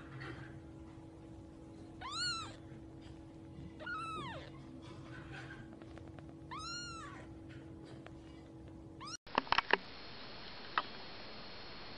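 A newborn kitten mewing three times, each a high call that rises and then falls. About nine seconds in, the mews give way to a few sharp clicks over a steady hiss.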